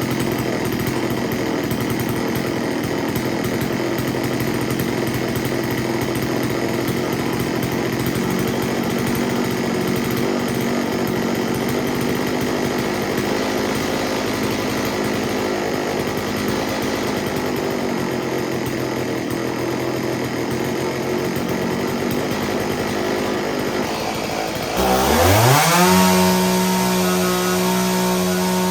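STIHL 024 AV chainsaw's two-stroke engine running steadily at idle, then near the end revved quickly up to full throttle and held there, the pitch climbing and staying high. The carburettor tune is close to the factory setting, running just a little rich.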